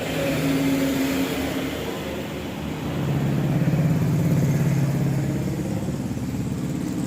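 A motor vehicle's engine running steadily, getting louder for a couple of seconds from about three seconds in.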